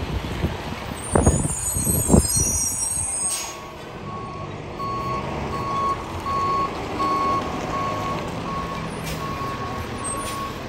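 Rear-loader garbage truck's diesel engine running, with a couple of loud knocks in the first two seconds and a short hiss about three seconds in. Then its reversing alarm beeps steadily about twice a second as the truck backs up.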